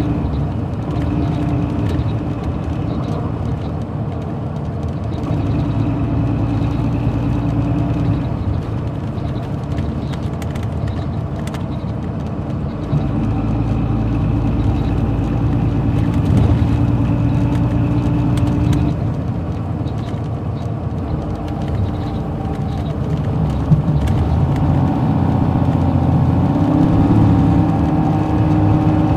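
Inside a 2007 MCI D4500CL coach under way: its Caterpillar C13 ACERT inline-six diesel running, a steady drone whose tones fade in and out and shift in pitch every few seconds, with one brief clunk about three-quarters of the way through.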